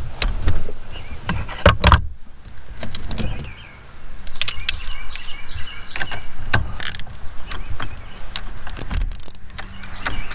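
Metal hand tools clinking, knocking and scraping in irregular bursts as a socket ratchet is handled and put to work on a steering column.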